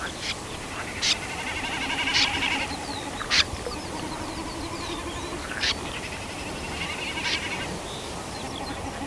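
Wild birds calling around a wetland: about six short, sharp calls, the loudest about three and a half seconds in, over rapid trills and a few short down-slurred whistles.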